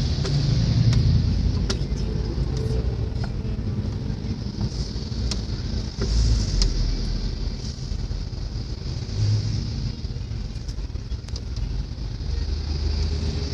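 Road noise heard from inside a moving vehicle on an expressway: a steady low rumble with tyre hiss, swelling near the start and again about six seconds in as trucks pass close alongside. A few light ticks sound now and then.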